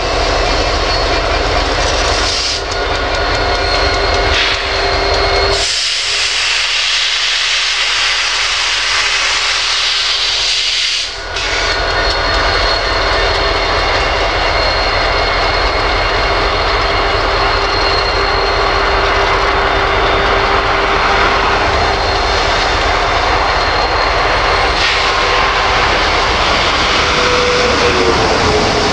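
Slow diesel-hauled freight train rolling past, without horns: the locomotives' engines run by, then covered hoppers and a tank car rumble along the rails. A stretch of louder hiss comes about six seconds in and stops suddenly near eleven seconds. A steady whine holds throughout, and a short falling squeal comes near the end.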